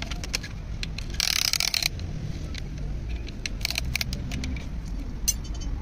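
Light metallic clicks and handling noises as a piston and its rings are worked at a cylinder bore of an Isuzu 4JB1 diesel block, with a short burst of hiss-like noise just over a second in. A low rumble runs underneath.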